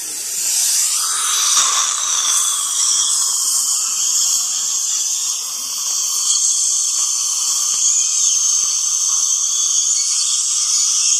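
Dental handpiece whining steadily as it works on the teeth, with a hiss of suction from the saliva ejector in the mouth.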